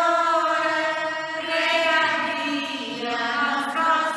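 Choral music: voices singing slow, long held chant-like notes that move to new chords a couple of times.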